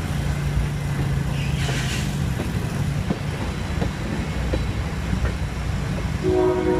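Freight train cars rolling past: a steady rumble of wheels on rail with scattered clicks from the wheels. A brief hiss comes about two seconds in, and a chord of steady tones starts near the end.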